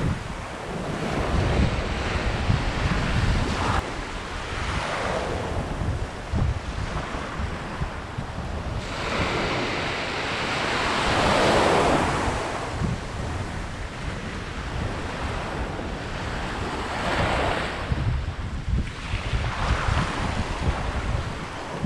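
Small ocean waves breaking and washing up the shore, surging every few seconds, with the biggest surge about halfway through. Wind buffets the microphone.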